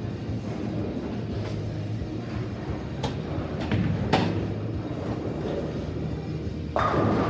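Bowling alley lane noise: a steady low rumble of bowling balls rolling down the lanes, with sharp knocks about three and four seconds in and a louder clatter starting near the end.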